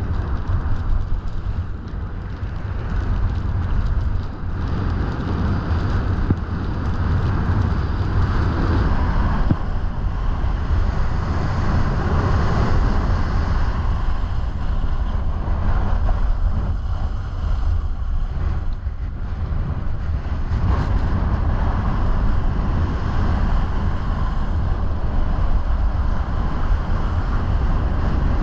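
Steady wind rushing over the microphone while skiing downhill, mixed with the continuous hiss of skis sliding over snow.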